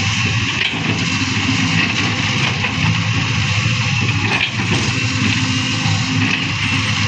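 Diesel engine of heavy machinery, a dump truck or excavator, running steadily with a rapid low rumble under a loud rushing hiss.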